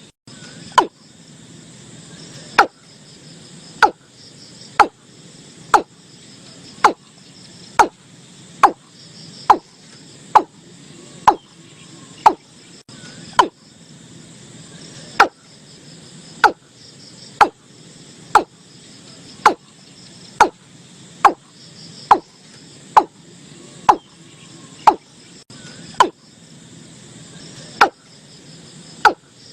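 Watercock calling: short, sharp notes, each falling in pitch, repeated about once a second, over a faint high hiss of insects.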